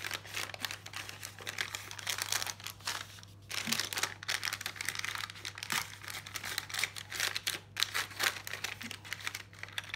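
Plastic blind-bag packets of toy bricks crinkling and rustling in the hands as they are handled and opened, an irregular run of crackles with a brief pause about three seconds in.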